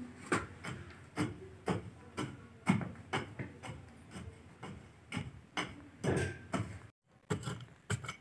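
A metal blade stabbed again and again into a hard-packed dry mud floor, about two dull knocks a second, loosening the earth to dig a stove pit. The knocking breaks off briefly about seven seconds in, then goes on.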